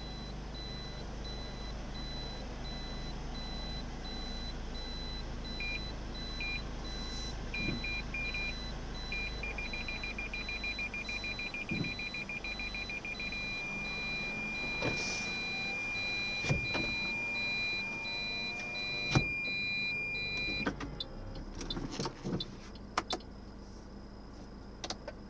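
Reversing parking-sensor beeps in a Toyota Corolla Altis: single beeps come in about five seconds in, quicken into rapid beeping, then turn into one continuous tone about 13 seconds in, as over a steady low running sound. A few sharp knocks sound meanwhile, the loudest about 19 seconds in, and the tone and running sound stop together about 21 seconds in, followed by scattered clicks.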